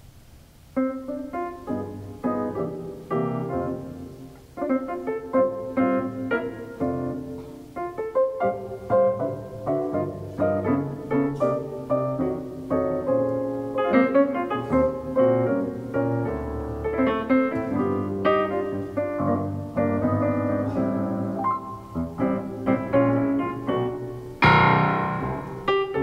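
Solo piano playing a quick succession of notes and chords, starting about a second in, with one loud struck chord near the end.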